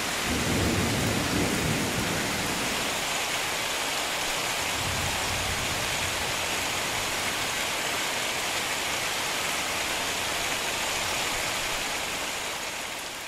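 Heavy rain falling in a steady hiss during a thunderstorm, with low rumbles of thunder shortly after the start and again about five seconds in. The sound fades out near the end.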